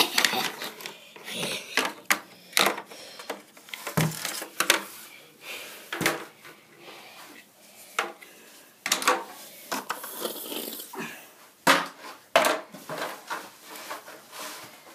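Irregular clicks, knocks and rubbing of a hand-held camera being moved and bumped against things, with sharper knocks near the start and about three quarters of the way through.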